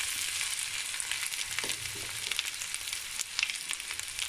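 Faint crackling sizzle from a hot kadai of sesame-oil tempering and cooked rice, as ground sesame powder is spooned in. A few soft knocks of the steel spoon come about a second and a half to two seconds in.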